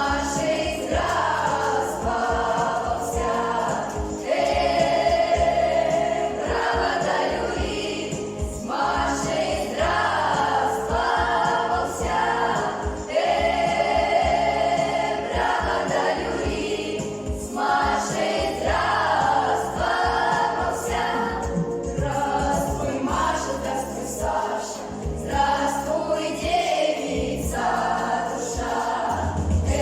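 Junior children's folk ensemble singing a Russian folk song together as a choir, phrase after phrase, over a steady low accompaniment.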